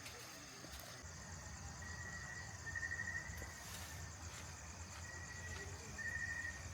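Insects trilling: a steady high trill throughout, with a lower trill coming in spells of about a second, several times. A low steady rumble runs underneath.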